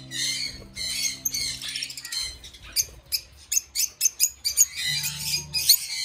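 A flock of lovebirds chattering with many short, shrill chirps, with a quick run of sharp chirps around the middle. Background music with sustained low notes plays underneath.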